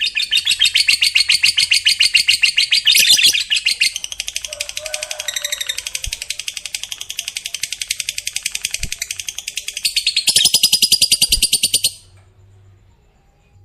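Lovebird's long 'ngekek': a fast, unbroken chattering trill of rapid high notes. It dips quieter for several seconds in the middle, swells again, then stops abruptly about twelve seconds in.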